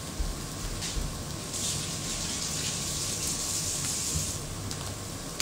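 A pancake of shredded onion, parsley and cheese sizzling in oil in a frying pan, a steady hissing that grows louder for about three seconds in the middle, with a couple of faint knocks near the start.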